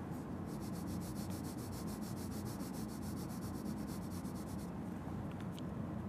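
Wax crayon rubbing back and forth on paper as an area is coloured in, a faint run of quick, even scratchy strokes that stops about three-quarters of the way through, over a steady low hum.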